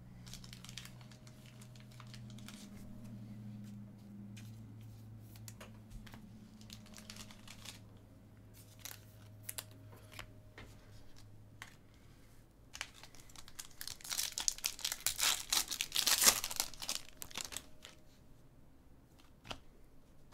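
A trading card pack's wrapper being torn open and crinkled: a dense crackling, tearing stretch about two-thirds of the way through, the loudest part, with scattered light clicks before and after it.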